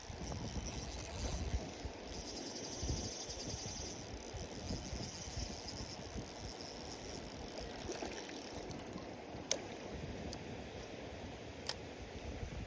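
Outdoor ambience of wind rumbling on the microphone under a high, pulsing insect trill. The trill stops about two-thirds of the way in, and three sharp clicks follow near the end.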